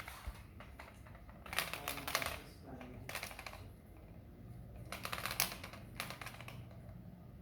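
Kittens batting and pawing at a plastic air-conditioner remote control, which clatters and clicks in three quick flurries of taps.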